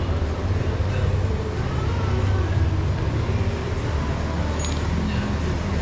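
A steady low mechanical hum, with a faint light metallic click about four and a half seconds in.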